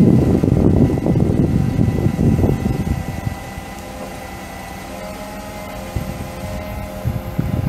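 Bucket truck engine running: loud and rough for about the first three seconds, then settling into a quieter, steady hum.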